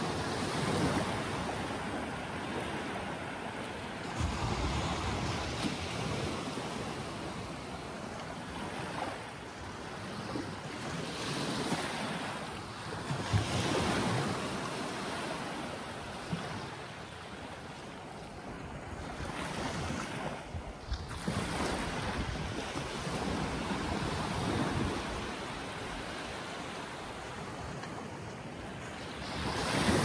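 Small sea waves breaking and washing up onto the shore, the surf swelling and easing every few seconds.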